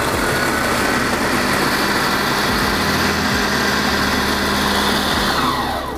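Electric blender with a chopper bowl running on dry shallots, garlic and chillies, coarse-chopping them without water. The motor runs steadily and loudly, then winds down near the end.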